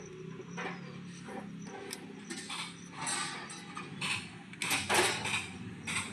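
Irregular metal clicks and clinks of hand tools and bolts as the timing chain guide is bolted onto a scooter engine, over a steady low hum.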